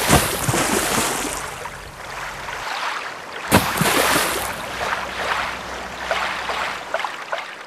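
Rushing water, like breaking surf: a sudden loud surge at the start that hisses away over a few seconds, then a second surge about three and a half seconds in that fades the same way.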